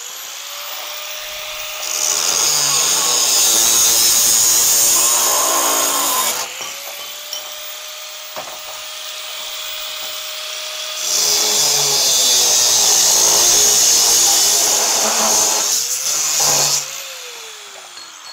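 Handheld angle grinder grinding thin-walled square steel tube. Two long passes of loud grinding are heard, with the motor spinning freely in between. The motor winds down near the end.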